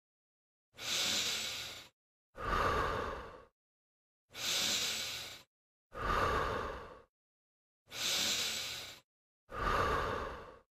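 A person breathing in a slow, even rhythm, alternating in-breaths and out-breaths to show the breathing pattern for the exercise. Six breaths of about a second each, separated by silence.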